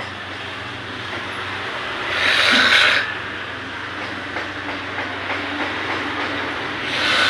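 A person snoring heavily: a steady rasping drone with two louder hissing breaths, one about two seconds in and one near the end. The snore is loud enough to be likened to a train.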